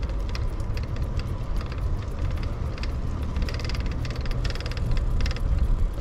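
Bicycle rear freewheel ticking rapidly in short spells in the second half, as the rider coasts, over a steady low rumble from riding.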